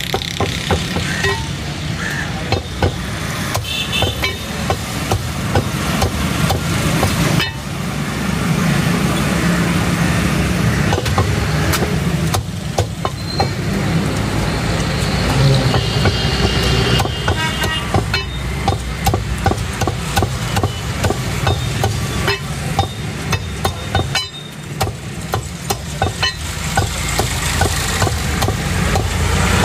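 Meat cleaver chopping through raw chicken and bone onto a wooden chopping block: repeated sharp chops in quick runs. Under the chops runs a steady low hum of traffic.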